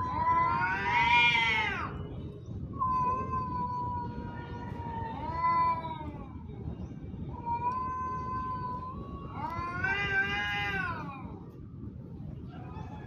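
Domestic cats caterwauling, the drawn-out threat yowls of a cat fight. Long wails hold a steady pitch, then rise and fall back, three times.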